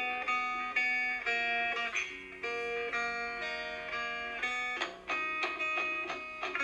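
Background music: a guitar playing a plucked melody, note after note.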